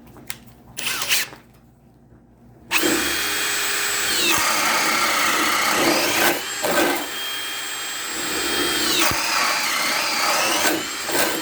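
Ryobi One+ HP brushless hammer drill on speed 2 boring with a 1-inch spade bit: a few light handling clicks, then the drill starts about a third of the way in and runs hard and continuously. Its motor whine drops in pitch as the bit bites under load and rises again as it frees, twice.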